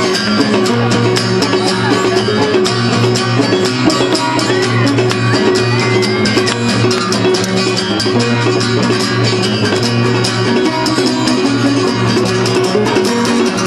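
Live band playing an instrumental passage of a sea-shanty-style song, guitar over a drum kit keeping a steady beat.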